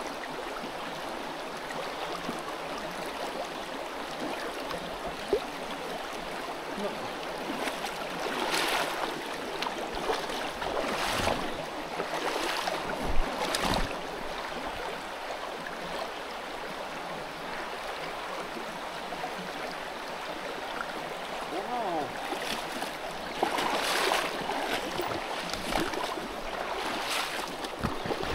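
Shallow creek water flowing steadily over a stony bed, with intermittent splashing of legs wading through it, heaviest in two spells around the middle and near the end.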